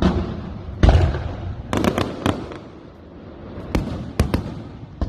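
Aerial fireworks bursting overhead: a string of sharp booms and cracks, the deepest and loudest about a second in, others coming in quick pairs, each followed by a rumbling echo.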